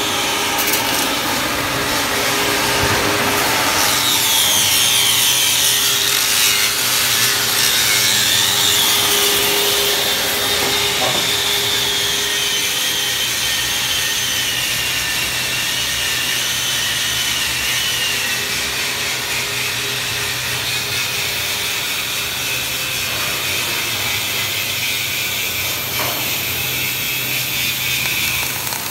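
Angle grinder grinding steel steadily, its high whine sinking slowly in pitch as it works under load.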